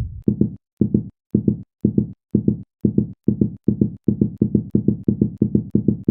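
Edited-in music: a low drum beat of short, repeated thuds, about two a second at first and speeding up to about four a second near the end.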